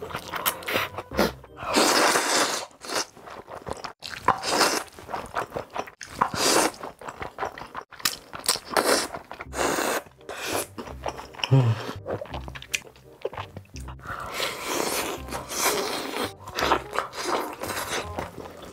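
Close-miked mukbang eating sounds: a person chewing and crunching big mouthfuls of food in irregular, wet bursts, some drawn out for about a second.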